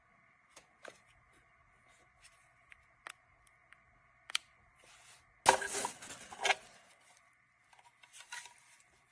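Handling noises: scattered sharp clicks and taps, with a louder clattering rustle about five and a half seconds in that lasts about a second.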